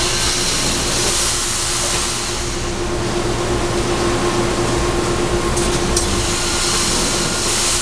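Steady factory machinery noise: a loud, even hiss of air with a constant hum and low rumble beneath it, and a couple of faint clicks about six seconds in.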